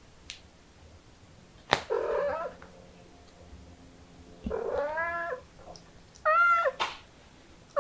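A kitten mewing three times, each high call lasting about half a second to a second, the last one higher in pitch. A sharp click comes just before the first mew.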